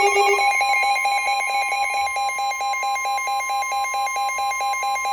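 Emergency Alert System alert tones announcing a severe thunderstorm warning: a loud electronic tone pulsing about five times a second over a steady high tone.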